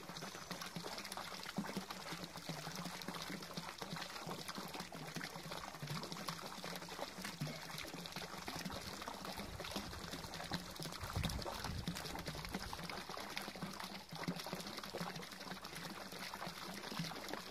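Water pouring steadily from a pipe into a garden pond, splashing onto the surface.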